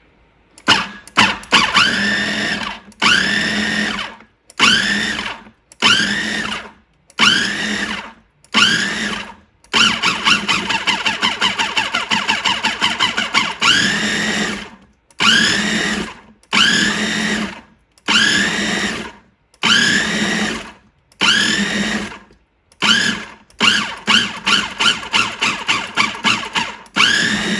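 Food processor pulsed over and over in bursts of about a second, the motor whining up in pitch at each start as the blade chops a wet load of roasted tomatillos, avocado and herbs into salsa. Twice it is tapped in a quick run of short pulses.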